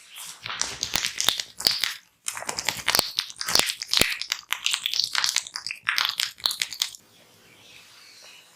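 Close-up crackling and scratching of fingers rubbing over the head and ears during a massage, with a short break about two seconds in and a few sharper pops in the middle. It stops about a second and a half before the end, leaving faint hiss.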